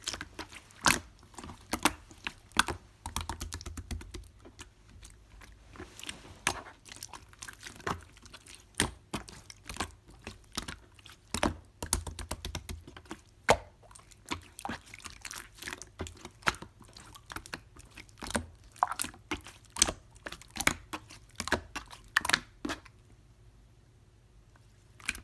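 Clear slime being squished and pressed by hand, giving irregular sharp clicks and pops from trapped air. It stops about 23 seconds in, with one last click near the end.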